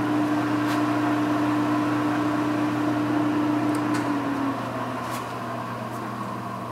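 Kingston HJ-1700 engine lathe running with its spindle in low gear at about 35 RPM: a steady whine from the 7.5 HP drive motor and headstock gearing, which dies away about four seconds in.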